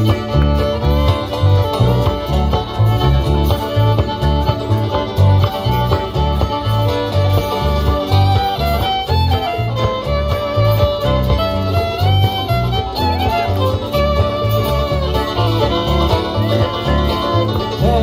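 Live bluegrass band playing an instrumental passage: a fiddle carrying the melody over banjo, mandolin, acoustic guitar and electric bass, with a steady pulsing bass line.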